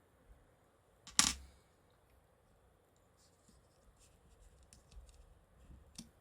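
Small tools and phone parts being handled on a work surface: one sharp click about a second in, then light scattered ticks and a smaller click near the end.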